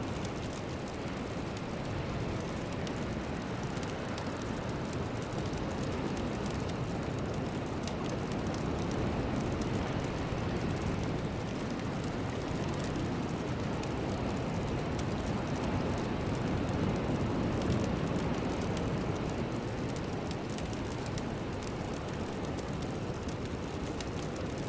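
Steady, even rushing noise, heaviest in the low range, with no tune, beat or voice: the ambient noise bed of a chakra-balancing meditation track.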